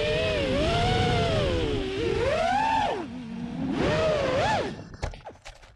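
Four-inch FPV quadcopter's T-Motor 1507 brushless motors and Gemfan 4032 propellers whining, the pitch swooping up and down with the throttle. Near the end the sound drops away with a few clicks and stops.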